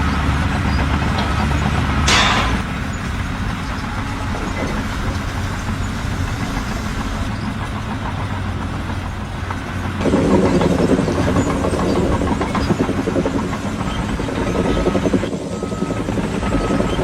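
Heavy diesel vehicle engine running steadily, with a short hiss about two seconds in. The engine runs louder from about ten seconds in, and faint repeated beeps come near the end.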